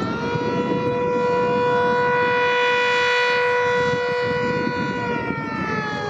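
Refinery air-raid siren sounding during its test: one loud pitched tone rises briefly, holds steady, then begins to fall in pitch about five seconds in.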